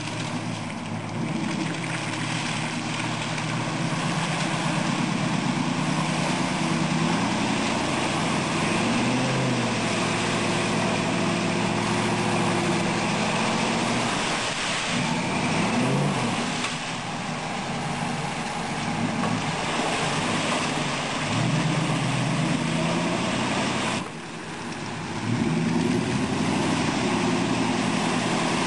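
Lifted Toyota 4x4 pickup's engine revving up and dropping back again and again under load while mudding, with the tyres churning and throwing mud.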